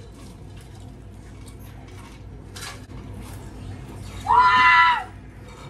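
A high-pitched voice squeal, held on one pitch for under a second, about four seconds in. Before it, a few faint short crunches and clicks.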